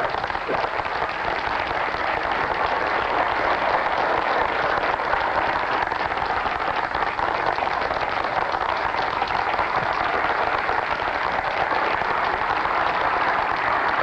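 A large crowd applauding: dense, steady clapping from many hands, swelling a little over the first few seconds and then holding.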